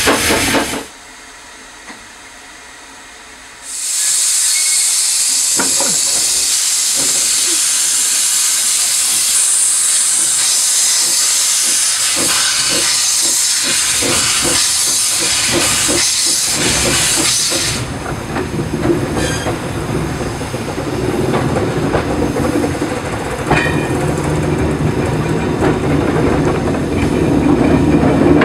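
Small saddle-tank steam locomotive working at close range. After a brief quieter gap, loud steam hissing sets in and runs for about fourteen seconds, with a run of regular beats in the middle. The hiss then gives way to a lower running rumble with scattered clicks.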